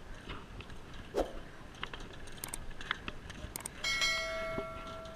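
A bicycle rattles with light clicks and knocks as it crosses a suspension footbridge. About four seconds in, a bell-like ding rings for over a second: the subscribe-button sound effect.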